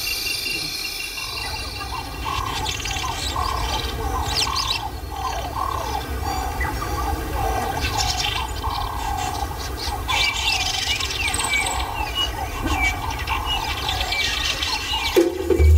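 Bush ambience: wild birds calling, with a long run of repeated calls and scattered higher chirps over a steady low rumble.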